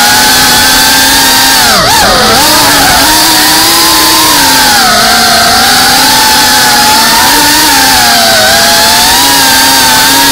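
GEPRC cinewhoop FPV drone's brushless motors and ducted propellers buzzing with a high whine. The pitch rises and falls with the throttle, dipping sharply and recovering about two seconds in.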